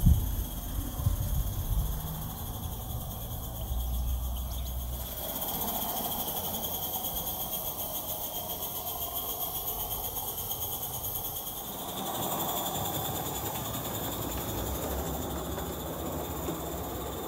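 Small live-steam garden-scale locomotive running on its track, a steady hiss of steam with the noise of its wheels on the rails.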